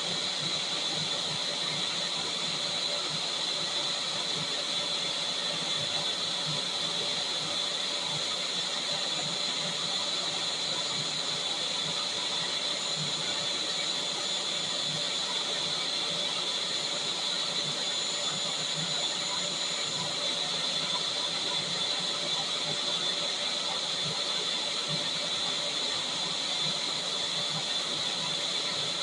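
Vacuum cleaner motor running steadily: a continuous rushing hiss with a high whine, unchanging throughout.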